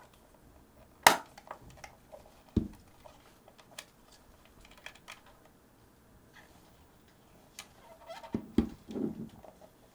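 Small clicks, taps and knocks of the Sony HVR-DR60 recorder's casing parts and tools being handled during reassembly. The loudest is a sharp click about a second in. There is a dull knock a little later and a cluster of knocks and handling near the end.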